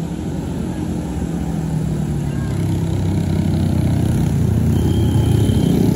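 Tour bus diesel engine approaching and growing steadily louder, a low even engine hum without any horn.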